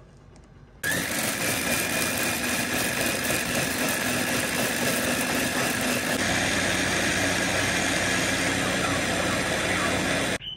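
Mitochiba electric chopper-blender running, churning strawberries, mango, ice cubes and milk into a smoothie. The motor spins up with a rising whine about a second in, runs steadily, and cuts off abruptly near the end.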